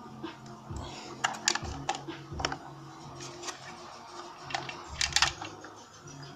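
Irregular clicks and knocks of hard plastic parts being handled: the hull, hatch and cabin pieces of a toy RC boat, with a louder cluster of clicks about five seconds in.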